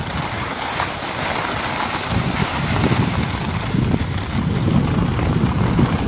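Wind buffeting the microphone while moving down a ski slope: a rough, rushing noise with uneven low rumbling gusts.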